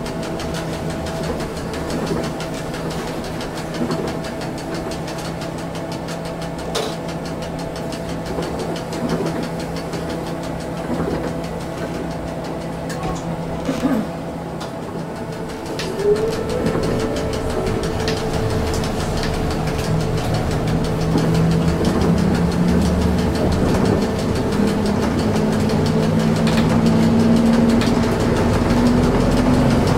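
Trolleybus heard from inside, a steady electric hum with a few knocks. From about sixteen seconds in, the electric traction motor's whine rises in pitch as the bus gathers speed, growing louder toward the end.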